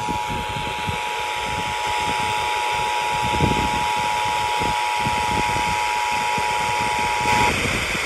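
Emergency Alert System attention signal, the steady two-tone alarm, sounding through a Midland weather radio's speaker over radio hiss and cutting off shortly before the end. It announces a tornado warning being broadcast.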